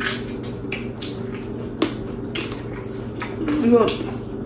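A metal spoon clicking and tapping against a dish a dozen or so times, over a faint steady hum, with a short bit of voice a little before the end.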